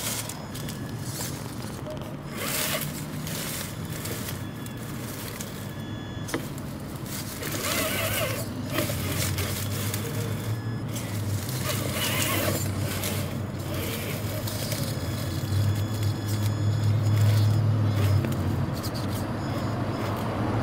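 Traxxas TRX-4 Sport 1/10 scale RC crawler climbing over rocks and mud, its electric motor and drivetrain whirring in short bursts of throttle, over a steady low hum.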